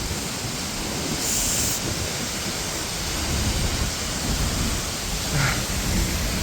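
Steady rushing of a waterfall close by, with wind buffeting the microphone in the lows.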